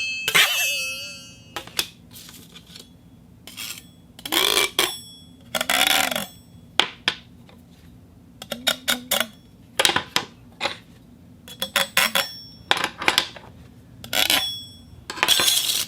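Metal plates clashing and clattering against each other in an irregular run of clangs, each strike ringing briefly. A few longer rattling clusters come about four and six seconds in and again near the end.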